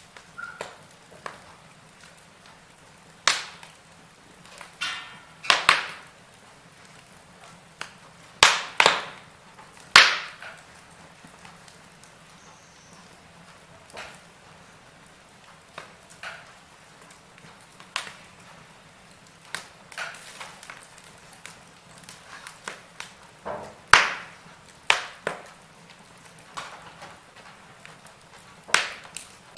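Wood fire in a fireplace crackling: irregular sharp pops and snaps, a few loud and many faint, over a soft steady hiss, with a faint steady low hum underneath.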